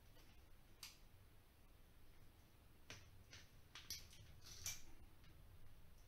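Faint, sharp clicks and snips of hand wire strippers working on electrical cable, about five or six spread over a few seconds, with the loudest near the end.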